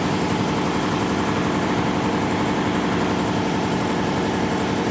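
Air compressor running with a steady, even mechanical drone.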